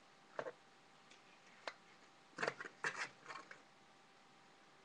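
Putty mixed with iron filings being kneaded and pulled in gloved hands: a few faint sticky clicks and snaps, with a quick cluster of them about two and a half to three and a half seconds in.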